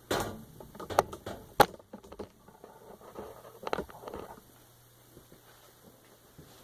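Workshop handling noise as plywood panels and tools are set up for gluing and screwing: a few sharp knocks and clicks in the first two seconds and another near four seconds, with light rustling between them, then it goes quiet.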